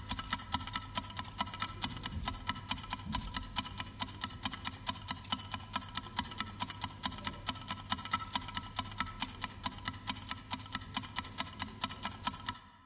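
Clock ticking fast and evenly, about four to five ticks a second, stopping abruptly near the end.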